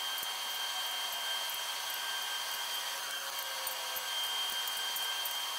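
Steady hiss of shop background noise with a faint high whine, and light scattered clicking from a torque wrench's ratchet as the main cap bolts are tightened.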